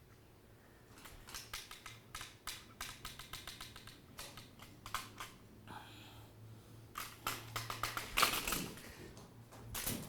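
Typing on a computer keyboard: runs of rapid key clicks with short pauses, and a few heavier knocks near the end.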